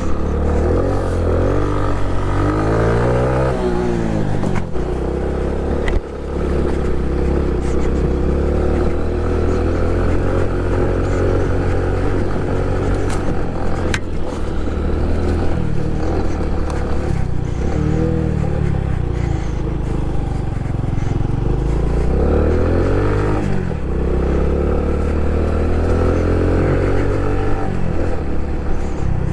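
Honda Pop 110i's small single-cylinder four-stroke engine running as the motorcycle is ridden off-road, its revs rising and falling several times. A few sharp knocks come through along the way.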